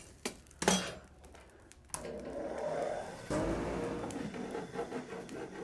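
Forge blower running steadily, stepping up louder about three seconds in, with a couple of light clicks near the start.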